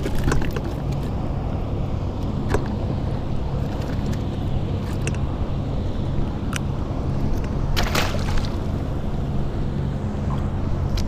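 Steady low drone on open water, with short clicks and rattles of hook and tackle as a small black sea bass is unhooked in the kayak; a denser rattle comes about eight seconds in.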